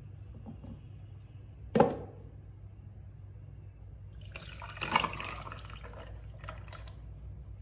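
Hot tea is poured from a glass cup onto ice cubes in a glass, splashing for about a second midway through. Earlier, about two seconds in, comes a single sharp knock, the loudest sound. A steady low hum runs underneath.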